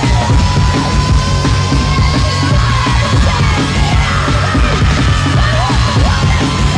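Loud breakcore / digital hardcore music: fast, dense drum breaks over heavy constant bass, a long held high tone that drifts slowly upward, and yelled vocals.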